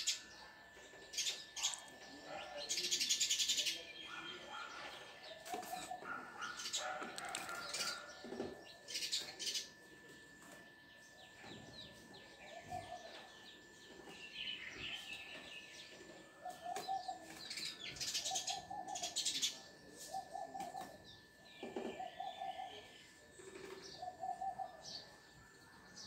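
Sparrows chirping at a nest box: short chirps repeated in irregular series, with a few louder, noisier bursts of calling.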